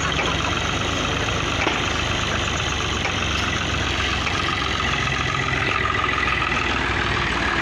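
Ghazi farm tractor's diesel engine running steadily under heavy load, pulling a trolley heaped with soil through mud.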